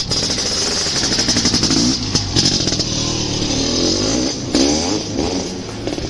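An engine running and being revved, its pitch rising and falling several times.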